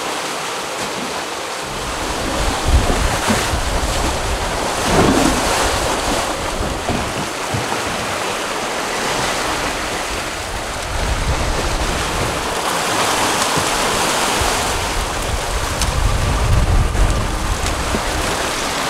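Ocean waves and the churning wake rushing past the stern of a sailing catamaran under way, with wind buffeting the microphone. The low rumble from the wind sets in about two seconds in and rises and falls in gusts.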